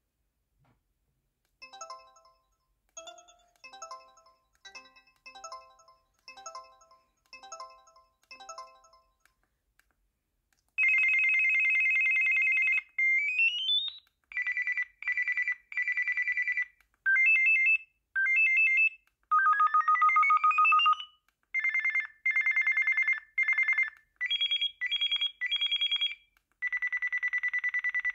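Samsung SPH-A420 cell phone playing two ringtones in turn. The first is a quiet melody of short fading chime-like notes, about two a second. After a short gap comes a louder, buzzy electronic ringtone of held tones in a repeating pattern, with rising sweeps twice.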